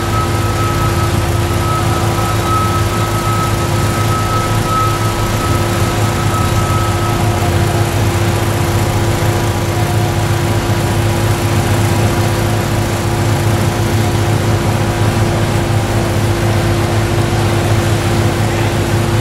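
Steady drone of construction machinery engines running, with a thin high whine that stops about seven seconds in.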